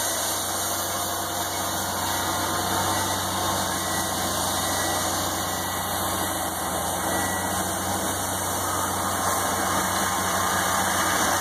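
ABI TM 13/16 SL crawler piling rig's engine running steadily.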